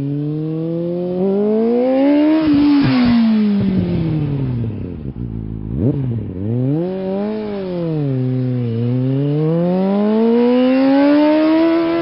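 An engine revving up and down several times: the pitch climbs for about two and a half seconds and falls away, a quick sharp blip comes about halfway through, then two more climbs follow, the last and highest near the end.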